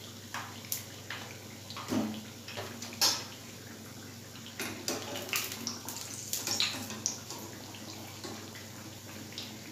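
Hot oil sizzling steadily as fried patties are deep-fried and lifted out, with scattered sharp clinks and scrapes of a wire skimmer against the frying pan, the loudest about 2 and 3 seconds in.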